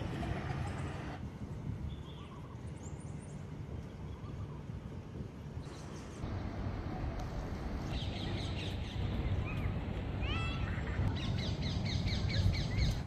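Birds calling: scattered short chirps and whistled notes that thicken into a quick repeated run of chirps in the last few seconds, over a steady low rumble.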